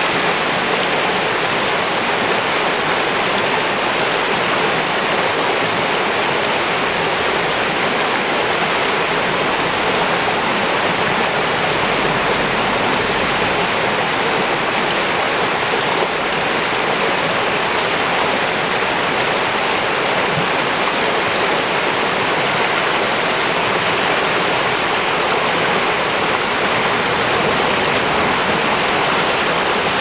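Shallow river rapids rushing steadily over and between rocks and boulders: an even, unbroken rush of whitewater.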